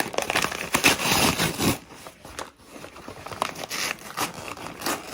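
Paper wrapping around a shipped houseplant crinkling and rustling as it is pulled open by hand. It is busier for the first couple of seconds, then quieter.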